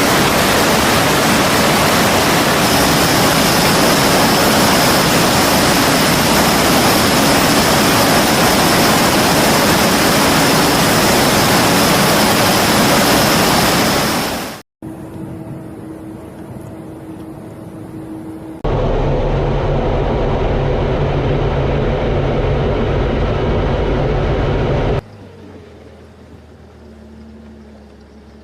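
Loud, steady rushing roar of large machinery with a high steady whine over it, fading out about halfway. Then come short cut-together stretches of quieter humming and a loud low rumble.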